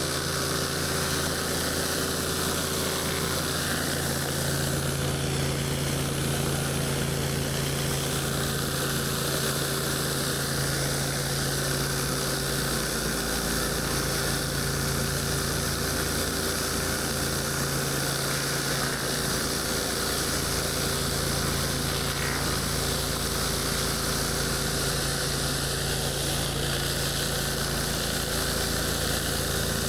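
8 GPM gas-engine pressure washer running steadily at a constant speed, with the hiss of high-pressure water spraying onto concrete.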